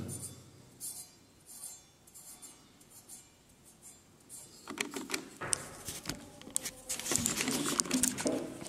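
Handling noise: a few faint clicks, then from about halfway irregular rustling and light clattering. No motor is running.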